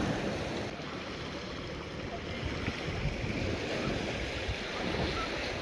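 Steady wash of sea surf breaking and running up a beach.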